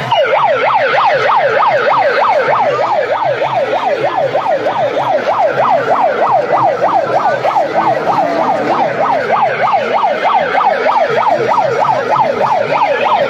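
Electronic siren sounding a fast yelp, its pitch sweeping rapidly up and down about four times a second.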